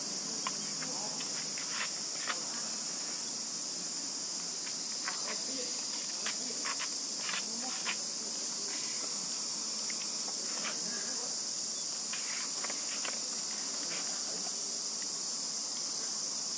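Steady high-pitched insect chorus, with a few scattered light clicks and rustles, mostly in the first half.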